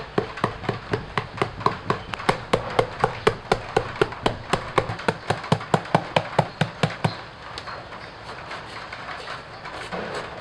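Large knife blade hacking rapidly into a peeled green papaya held in the hand, about five crisp chops a second, to score it into strips. The chops turn fainter about seven seconds in.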